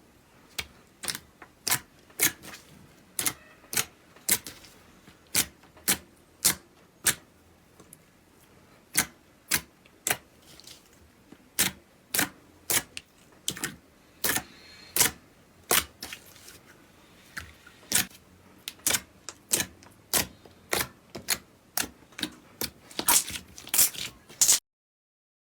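Slime being handled and pressed, giving sharp, irregular popping clicks, one or two a second, coming faster near the end and then stopping abruptly.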